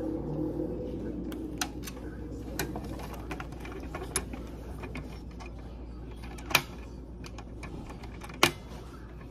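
Scattered plastic clicks and knocks from a laser printer drum unit being handled and taken apart by hand, with two sharper clicks in the second half.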